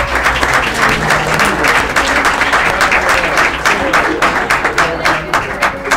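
Audience applauding, a dense run of clapping that thins out to scattered claps near the end.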